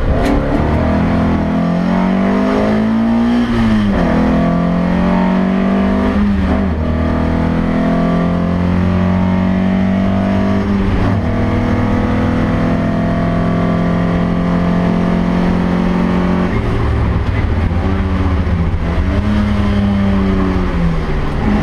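Opel Ascona B rally car engine heard from inside the cabin at stage pace, revving hard and climbing in pitch. The pitch drops sharply at each gear change or lift, several times over.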